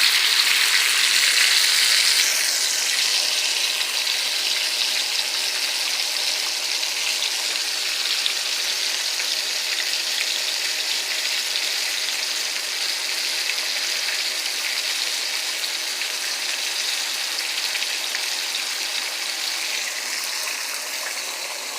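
Flour-coated pork ribs frying in hot oil: a steady sizzle, a little louder for the first couple of seconds.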